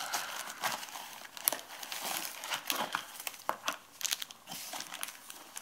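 Packaging crinkling and rustling in quick, irregular crackles as an accessory from a camera box is unwrapped.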